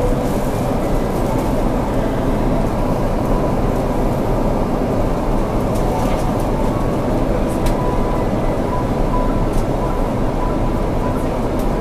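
Steady roar inside the cabin of an Airbus A330-300 on descent, engine and airflow noise heard at a window seat, with a faint thin whine that comes and goes.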